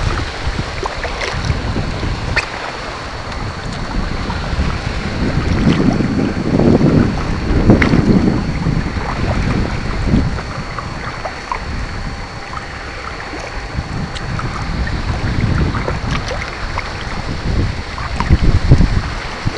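Wind rumbling on the microphone in uneven gusts, over water splashing and lapping against a kayak under way, with a few light knocks.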